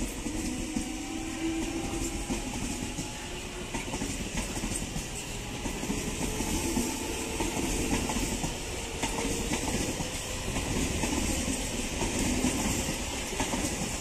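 South Central Railway suburban electric multiple-unit train passing close at speed: a steady rush of wheels running on the rails, swelling slightly as the coaches go by.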